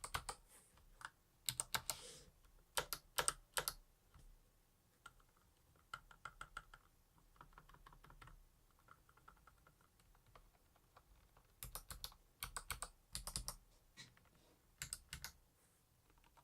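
Mechanical keyboard with Kailh Box Jade clicky switches and lubed stabilizers, keys pressed in short runs of sharp clicks. The clicks are louder near the start and again from about 11 seconds on, with softer presses in between.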